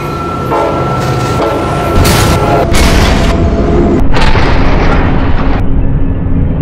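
Dubbed-in explosion sound effects: loud booms that start about two seconds in and run on in a string of blasts, standing for the toy locomotive smashing into the truck.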